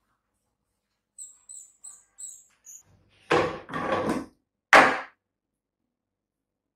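Plastic lab bottles being handled on a bench: a run of faint high squeaks, then three loud knocks and scrapes of plastic.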